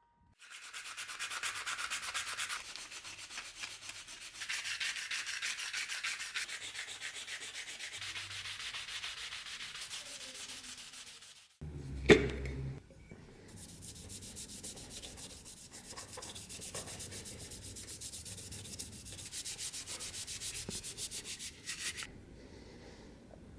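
Sanding by hand: steady rasping strokes of abrasive on the workpiece. About twelve seconds in there is a short break and one sharp, loud knock, after which the sanding goes on more quietly.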